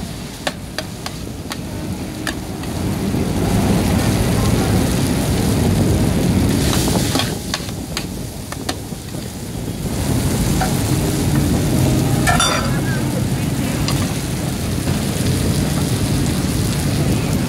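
Two metal spatulas scraping and clacking on a large flat steel hot plate as a big batch of pad thai noodles is stir-fried and tossed, over a steady sizzle of frying.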